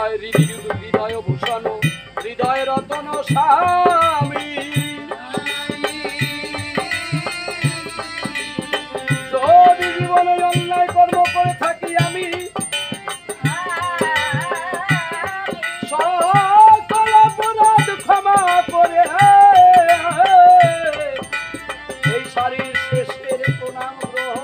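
Bengali Ramayan gaan folk music: a held, wavering melody over steady hand-drum beats and rattling percussion.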